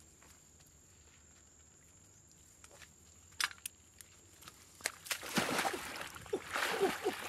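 Shallow muddy water splashing and sloshing as a person wades in and crouches down in it, starting about two-thirds of the way in and growing louder; before that it is quiet apart from a couple of sharp clicks.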